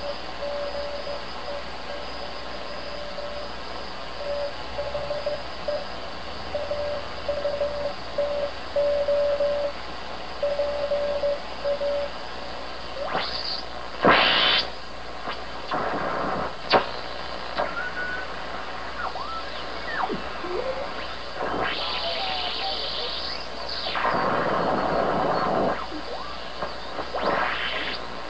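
Morse code received on a 1939 Philco shortwave radio on the 40-metre band: a steady beeping tone keyed in dots and dashes over constant receiver hiss, stopping about twelve seconds in. After that come louder bursts of shortwave static with a few short sliding whistles.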